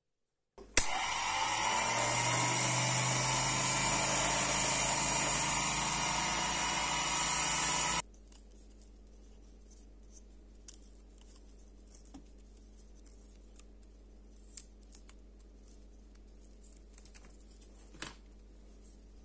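Small Unimat hobby lathe switched on with a click and running, its motor pitch rising briefly as it spins up to speed. The sound cuts off abruptly about eight seconds in, followed by faint clicks and taps of the turned pen barrel being handled.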